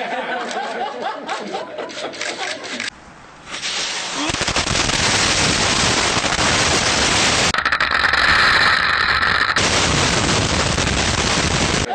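Voices with sharp clicks, then after a short dip a loud, dense stretch of gunfire and explosions from about four seconds in. Partway through, the sound thins for about two seconds and a high ringing tone rises over it.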